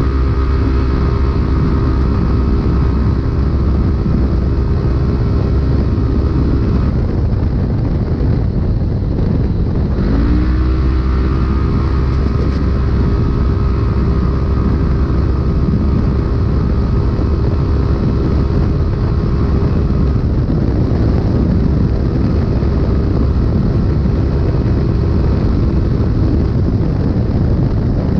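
Polaris RZR UTV engine running hard at steady revs, heard from inside the cab over a heavy low rumble. The engine note drops off about seven seconds in and climbs back up about three seconds later, then eases and rises again around twenty seconds in.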